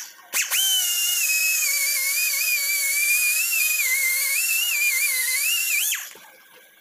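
Pneumatic die grinder with an abrasive stone grinding inside the kingpin bore of a truck steering knuckle. A high whine over an air hiss, wavering in pitch, starts about half a second in and stops about six seconds in.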